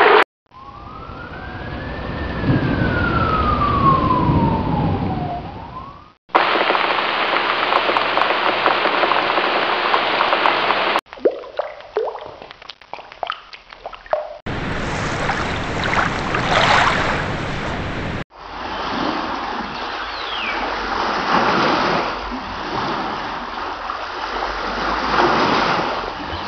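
A run of short water sound effects cut one straight after another: rushing water, a stretch of scattered drips and splashes, then more pouring or rushing water. In the first clip a tone rises and then slowly falls over the water for a few seconds.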